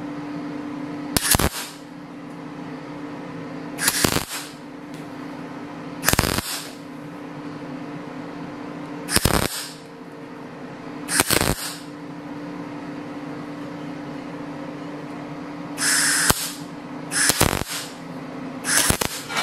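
MIG welder laying eight short tack welds on a steel steering-wheel spoke and rim, each a brief crackling burst of the arc under half a second long. A steady hum runs between the welds.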